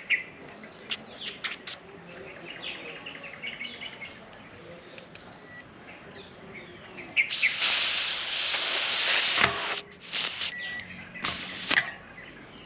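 Air hissing out of a mountain-bike tyre's Presta valve for about two seconds as a digital pressure gauge is pushed onto it, followed by two shorter hisses. A few clicks near the start, and birds chirping faintly throughout.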